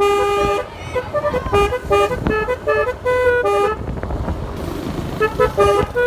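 Basuri snail-type ('keong') musical horn playing a 'telolet' tune: a quick run of short horn notes at changing pitches, opening on one longer note. The notes stop for about a second and a half past the middle, then the tune starts again near the end.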